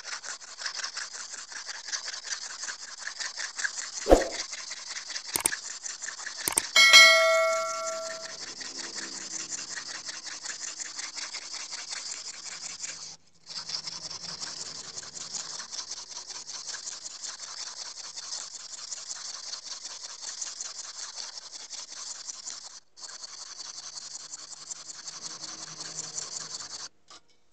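A Makita electric planer blade, held in a sharpening guide, is stroked quickly back and forth on a sharpening stone to hone a dull edge. The steady rubbing is broken twice by short pauses. A sharp click comes about four seconds in, and a ringing metallic clang comes about seven seconds in, the loudest sound.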